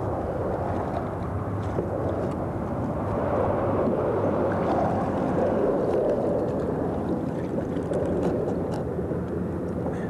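Steady low rush of wind and choppy water, with a few faint clicks.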